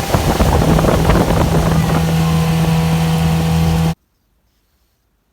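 Mercury 9.9 hp outboard motor running at steady speed under way, with wind buffeting the microphone. The sound cuts off suddenly about four seconds in.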